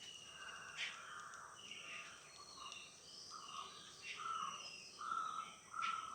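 Several birds calling and chirping over one another, with a steady high insect buzz underneath; a louder, held call starts near the end.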